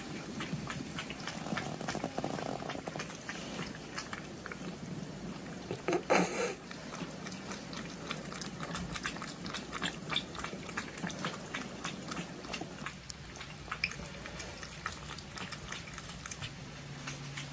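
Cats crunching dry kibble from stainless steel bowls: a steady patter of small clicks, with a brief louder noise about six seconds in.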